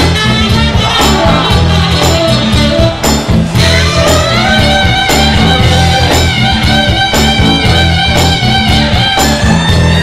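Loud band music with a steady drum beat and bass line, and a held melody line that slides up about three and a half seconds in.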